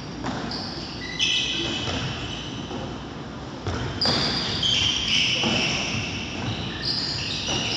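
Handball bouncing on a wooden sports-hall floor, with sharp thuds from passes and dribbles and repeated high squeals of indoor shoes as players cut and stop, echoing in a large hall.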